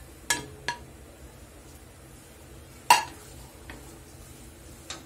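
A ceramic plate and a wooden spatula knocking against a steel kadhai as ground dry coconut is tipped in and stirred: a few sharp clinks, the loudest about three seconds in.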